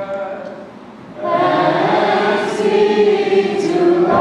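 Church choir singing a hymn, coming in strongly about a second in after a fading held note; at this point in the Mass it is the closing hymn after the final blessing.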